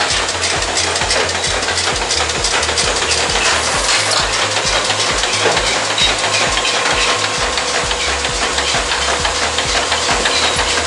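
Tecnomeccanica T2 Prima single-chamber tea bag packing machine running in production: a fast, steady clatter of mechanical clicks over a regular low pulse.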